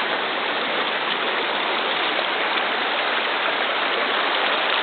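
River water rushing steadily over shallows.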